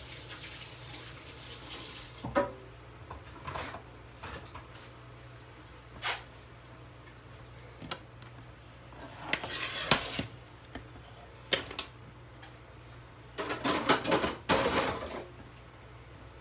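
Cut vegetable pieces being moved about on a metal sheet pan: scattered knocks and short clattering rattles, the loudest around ten and fourteen seconds in, over a faint steady hum.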